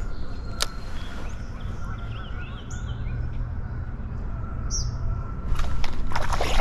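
Small birds chirping, with a short warbling phrase a few seconds in, over a steady low rumble. A sharp click comes early, and a burst of rustling noise begins near the end.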